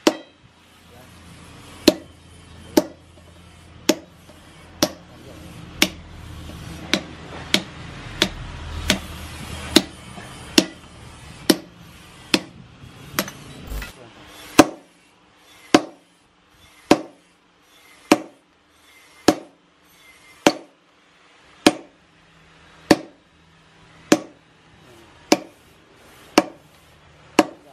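Sledgehammer blows on a red-hot blade of bearing steel on an anvil, about one a second, each a sharp clang with a brief metallic ring. A low hum underneath cuts off about halfway through.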